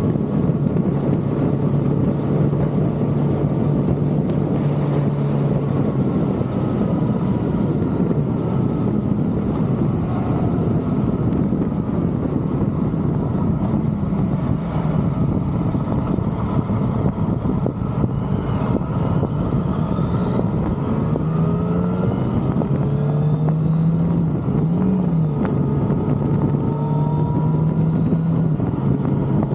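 Motorcycle engine running under way with heavy wind and road noise. The engine note fades in the middle as the bike eases through a bend, then comes back rising in pitch as it accelerates, and holds steady again near the end.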